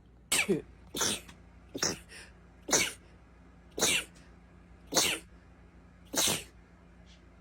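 A person in a sneezing fit: seven short, sharp sneezes in quick succession, about a second apart.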